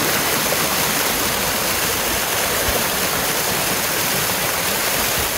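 Steady rush of water, with a Megalodon Storm amphibious RC stunt car's wheels churning through the pond.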